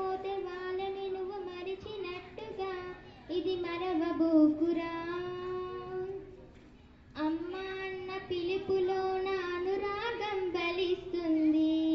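A girl singing solo into a handheld microphone, with long held notes and a short break about six seconds in.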